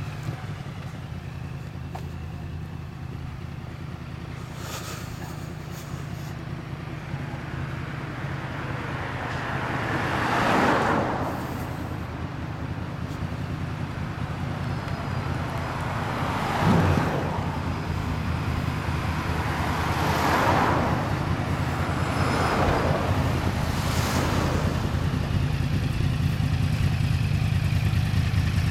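2009 Yamaha YZF-R1's crossplane inline-four with a Yoshimura exhaust running at low revs as the bike rolls up, growing louder toward the end. Cars swish past several times along the way.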